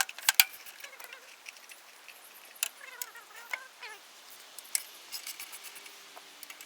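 Small metal parts and tools clinking and tapping in a series of sharp clicks, the loudest right at the start, with a few short squeaks midway.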